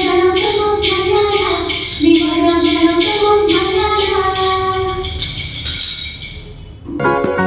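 A jingle stick of small metal bells on a wooden handle, shaken to a steady beat of about two shakes a second under a woman singing a children's goodbye song; both fade out near the end, and a different tune with bell-like tones starts just before the end.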